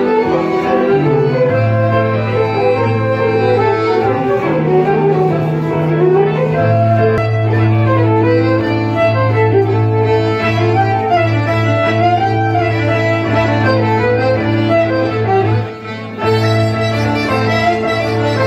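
Live Breton fest-noz dance music, a fisel dance suite: a fiddle leads the tune with a diatonic accordion, over a sustained low bass note. The music briefly drops out for under a second about three seconds before the end.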